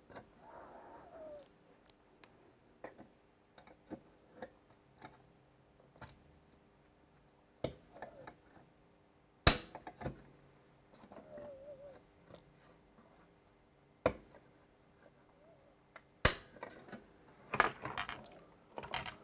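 Sparse, irregular small clicks and ticks of a steel dental pick working against a desoldered 74LS145 chip and the circuit board as the chip is levered out of its holes. A louder click comes about halfway through, and a quick run of clicks comes near the end.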